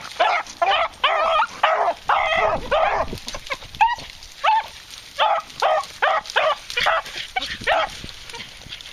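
Beagles baying in a string of short, pitched calls, a few a second, thinning out briefly around the middle. This is the hounds giving tongue as they run a rabbit on its scent.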